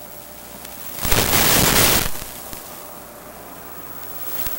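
Radio static from a cheap analog wireless spy camera's link: a steady hiss, with a loud burst of static about a second in that lasts about a second.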